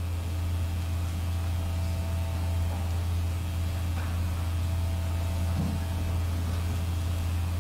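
Steady low electrical hum, with a few faint movement sounds from people shuffling beneath it.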